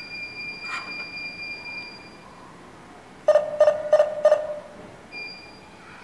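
W4B Wi-Fi/GSM alarm control panel's speaker sounding electronic tones: a high steady beep that ends about two seconds in, then, about a second later, four quick beeps at about three a second.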